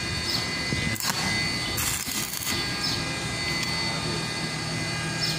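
Steady machine drone with several thin high whining tones running through it, and short faint chirps recurring every half second or so; brief bursts of hiss about a second and about two seconds in.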